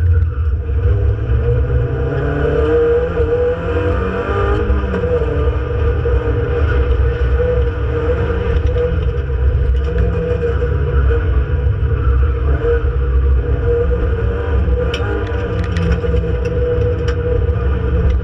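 Renault Clio Sport 2.0 182's 2.0-litre four-cylinder engine heard from inside the cabin at racing pace, its pitch rising and falling again and again as it is driven hard through the circuit. A few sharp ticks come near the end.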